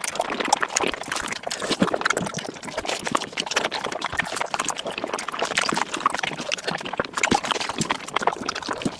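Mukbang eating sounds sped up five times: chewing and mouth noises packed into a dense, rapid run of clicks.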